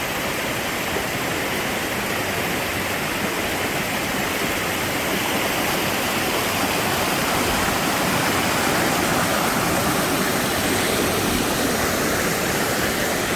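Waterfall rushing: a steady roar of falling water, Long Creek Falls, with no breaks.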